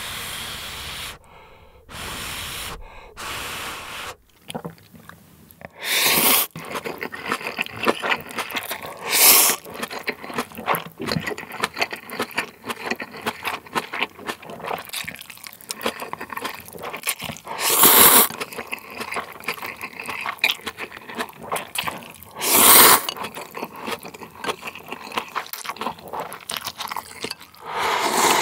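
A person slurping instant ramen noodles in several long, wet sucks, with close, sticky chewing clicks and smacks in between. Near the end comes one more slurp as broth is sipped straight from the bowl.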